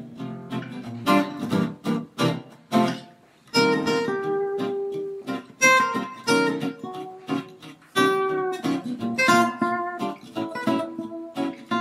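Acoustic guitar music: a run of strummed chords and plucked notes, each ringing and fading.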